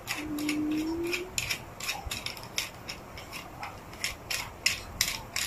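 Black plastic phone-mount clamp of a tripod being pulled open and worked by hand: a run of light, irregular plastic clicks and rattles. A short low hum sounds about a second long near the start.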